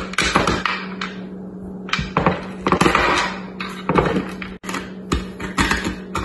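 Wooden pestle pounding peppermint candy cane pieces in a wooden bowl: a run of irregular thuds with the crunch and rattle of hard candy breaking into crumbs.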